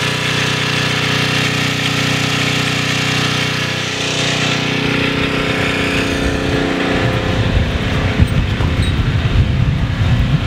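Electric roll-up side motor on a greenhouse roll-up bar running with a steady hum as it winds the side wall up. Its hum fades about four to six seconds in, and an uneven low buffeting of wind on the microphone takes over, loudest near the end.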